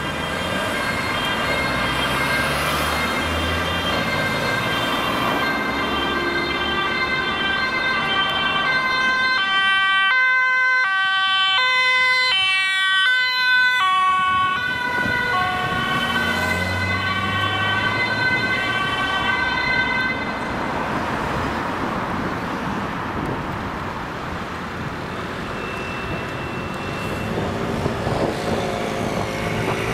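Ambulance two-tone siren, alternating between a high and a low note, loudest as the ambulance passes about ten to fourteen seconds in, then fading away. It dies out after about twenty seconds, leaving road traffic noise.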